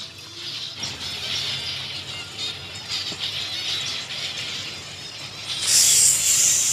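A flock of zebra finches chirping steadily. About five and a half seconds in, a loud hiss lasting just over a second comes from the hand-pump bottle sprayer being worked.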